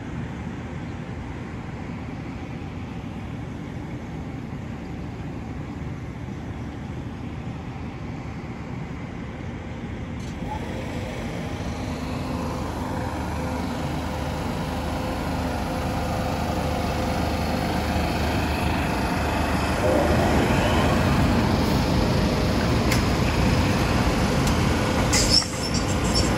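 MBTA Green Line Type 7 light-rail trolley rolling past close by, its running noise growing steadily louder as it nears. A short rising-and-falling whine comes about twenty seconds in, and a few sharp metallic clanks come near the end.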